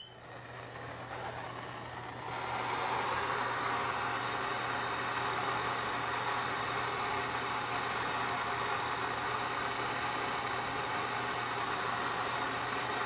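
Handheld gas soldering torch flame hissing steadily against a copper pipe brace, heating the joint for soft-soldering. The flame grows louder about two seconds in, then holds steady until it cuts off suddenly.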